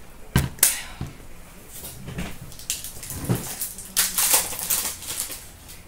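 Hockey card packs and their wrappers being torn open and handled by hand: a couple of sharp clicks in the first second, then several short rips and crinkles.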